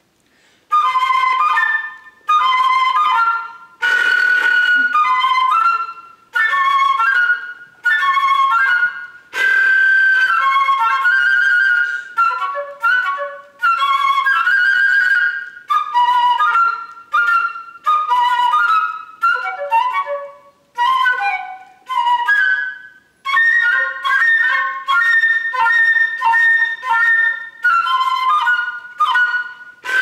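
Solo concert flute playing a piece that imitates bird calls: short, rapid phrases broken by brief pauses, coming in under a second in, with a run of quick repeated high notes near the end.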